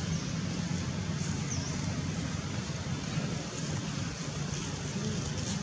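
Steady low rumbling outdoor background noise with no distinct events, and a faint high chirp about a second and a half in.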